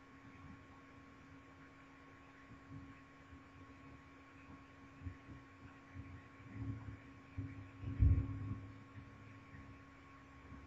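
Quiet room tone over a video call: a steady electrical hum with a faint higher tone, and soft low thumps that gather about six seconds in, the loudest just after eight seconds.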